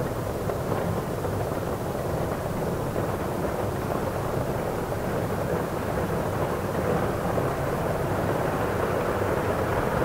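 Steady low ambient noise of a library interior, an even rumble and hiss with no distinct events standing out.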